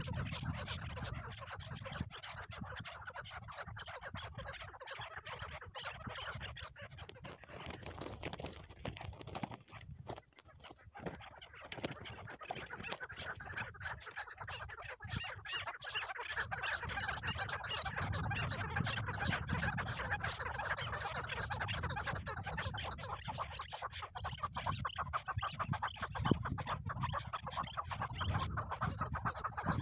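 Chukar partridges calling: a long run of rapid clucking notes, thinning briefly about ten seconds in, over a low rumble.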